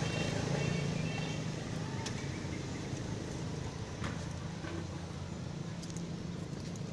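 Steady low hum of a motor running in the background, with a few faint clicks.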